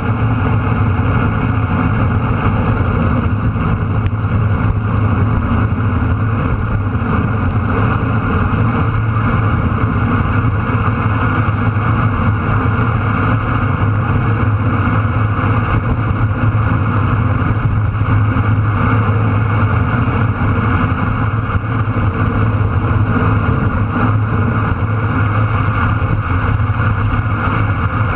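Steady rush of wind on the microphone with tyre and road noise from a vehicle travelling along an asphalt road at speed.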